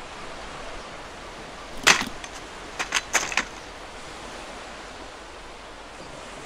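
One sharp, loud crack, then a quick run of five or six smaller clicks and taps over the next second and a half, over a steady hiss.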